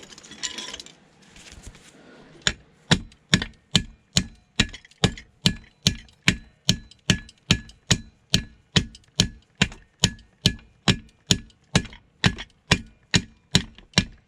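Hammer blows on metal in a steady rhythm, about two to three a second, each with a short metallic ring, knocking a part out of a steel machine being stripped for scrap. The blows start about two and a half seconds in, after some quieter handling.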